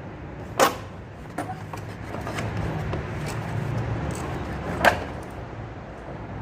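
Tools and parts knocking and clicking during engine-bay disassembly: two sharp knocks, about half a second in and near the end, with several lighter clicks between, over a steady low hum.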